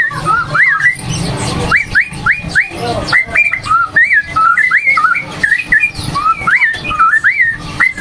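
Greater green leafbird (cucak hijau) in full, continuous song: a rapid run of quick rising whistled notes and chatters, sung as the caged bird is teased and shows it is 'gacor'.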